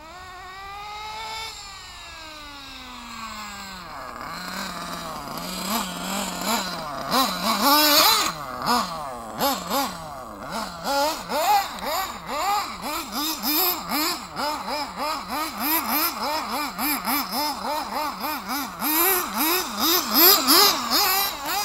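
Small nitro engine of an RC buggy revving: one long rise and fall in pitch over the first few seconds, then quick revs up and down about twice a second, with sharp clattering knocks.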